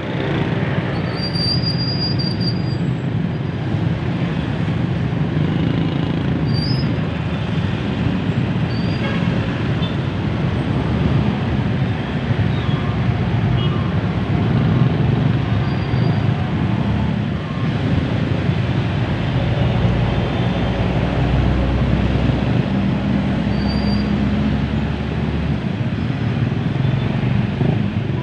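Dense, slow-crawling road traffic: a steady wash of idling and creeping engines and tyres. A deeper engine rumble swells louder from about two-thirds of the way in and eases off near the end.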